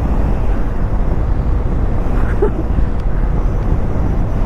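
Motorcycle cruising at highway speed, around 100 km/h in fifth gear: a steady, loud rush of wind over the microphone, deepest at the low end, with the engine and tyres running underneath.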